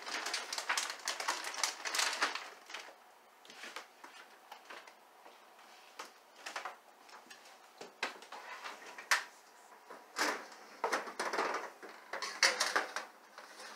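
Frozen curly fries being shaken out of a crinkling plastic bag onto a metal baking pan: irregular clicks and rattles. There is busier clattering near the end as the pan goes to the oven.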